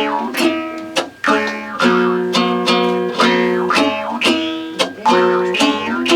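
Music played on a strummed dombra, its chords struck in a quick, even rhythm.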